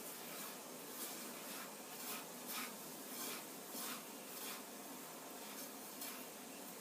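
Hand rubbing oiled couscous grains in a bowl: repeated soft, gritty swishes, about one or two a second.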